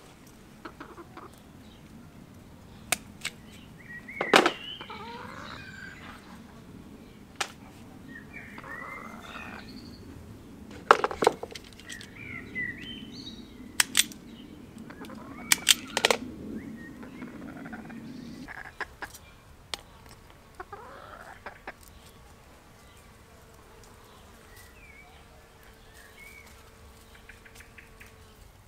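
Scattered sharp clicks and snaps of hand tools working on electrical wire, among them a wire stripper, with short bird calls in the background. A low background hum stops about two-thirds of the way through.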